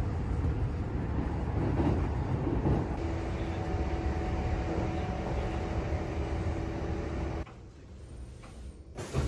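Inside a moving passenger train: steady low rumble of the running train, with a faint steady hum joining about three seconds in. Near the end the noise drops away suddenly and comes back just before the end.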